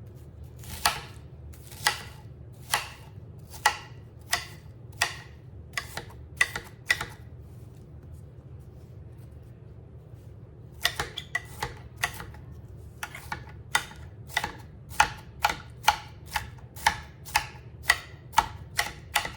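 Kitchen knife chopping an onion on a cutting board: sharp chops about one a second, a pause of about three seconds near the middle, then faster chops, two or three a second.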